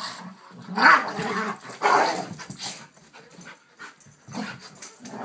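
Two dogs, a yellow Labrador and a black dog, play-fighting, giving short bursts of play vocalizations. The loudest come about one and two seconds in, followed by a quieter lull and a smaller burst near the end.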